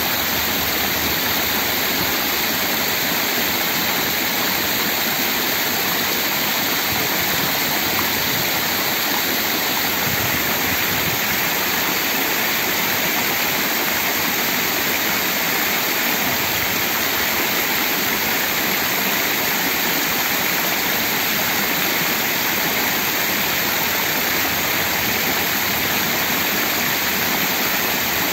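Basin fountain running: a row of water jets shooting across the basin and splashing into foam, making a steady, unbroken rush of water.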